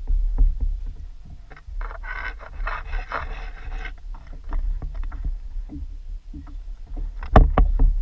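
Knocks and bumps on a Native Slayer Propel 10 plastic fishing kayak over a steady low rumble. A noisy rush lasts about two seconds early on, and a louder knock comes near the end.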